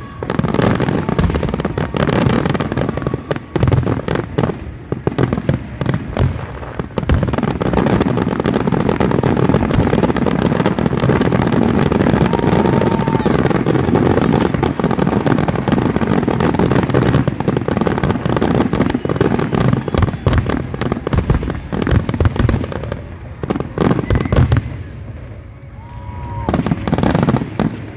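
Fireworks finale barrage: many aerial shells bursting and crackling at once, a near-continuous run of overlapping bangs. About 23 seconds in it thins out, leaving a few separate bursts.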